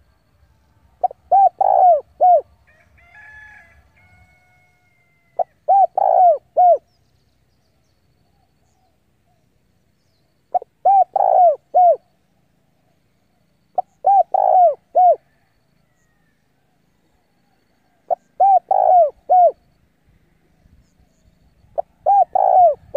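Spotted dove cooing: a decoy male repeating its short phrase of four or five coos about every three to four seconds, six phrases in all. This is the challenge call used to draw wild males in to fight.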